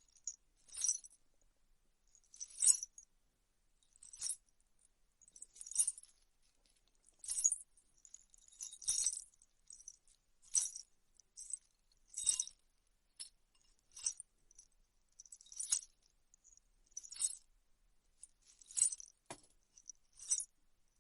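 A handful of metal jewellery tossed from hand to hand, jingling and clinking in short bursts about every second and a half, imitating the chime of an anklet (payal).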